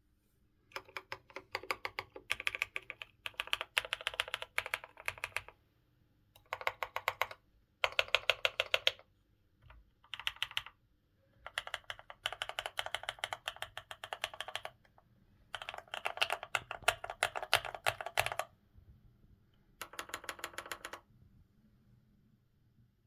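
Typing on a mechanical keyboard fitted with Akko Blue on White keycaps: quick runs of keystroke clacks in several bursts, broken by brief pauses.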